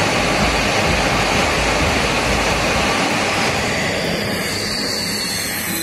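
Jet aircraft noise: a steady, dense roar. About three seconds in the low rumble thins and a high engine whine slides downward in pitch as a Dassault Rafale fighter comes in to land.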